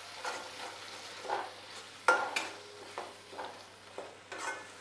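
Metal spatula scraping and stirring a thick masala with chopped tomato in a kadai, the mixture sizzling as it fries down. Irregular scrapes come about once a second, the loudest about two seconds in.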